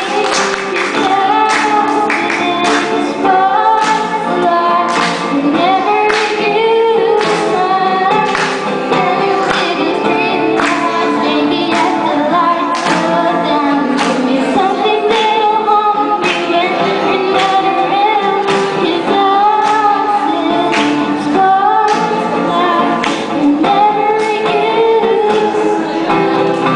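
A young woman singing a pop ballad while strumming her acoustic guitar in a steady rhythm.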